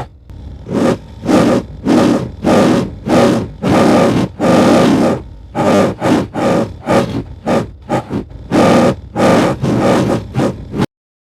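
Made-up Yuchuanosaurus dinosaur sound effect: a rapid series of short, rough calls, about two a second, that stops abruptly near the end.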